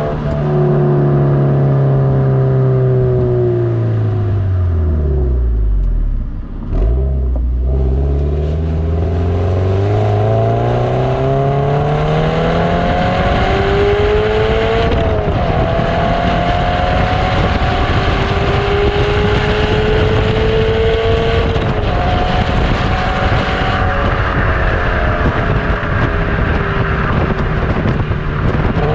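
Subaru BRZ's flat-four engine heard through an HKS Legamax Premier cat-back exhaust. The revs fall for the first several seconds, dip briefly about six seconds in, then climb steadily as the car accelerates. The second half settles into a steadier engine note mixed with road and wind noise.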